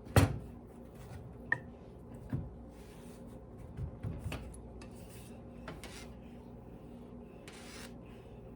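Kitchen clatter on a countertop: one sharp knock right at the start, then scattered quieter knocks and clicks, and a short rub near the end.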